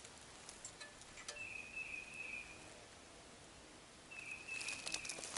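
Faint woodland ambience with a high, steady call note heard twice, a few seconds apart. Near the end come a few light clicks and rattles as a camp lantern is hung by its wire bail.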